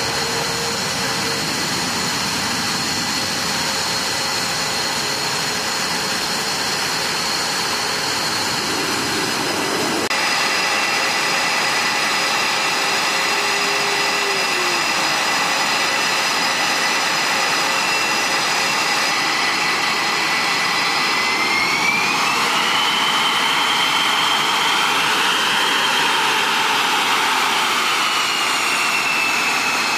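Military jet engines running on the ground: a steady rushing noise topped by a high whine. The whine shifts abruptly about a third of the way in, rises in pitch about two-thirds through, and eases down slightly near the end.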